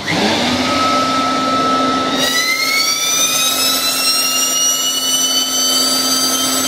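Homemade jet engine built from a truck turbocharger running loudly, a harsh rush over a steady low hum. About two seconds in, a whine rises from the turbo spooling up and keeps climbing in pitch.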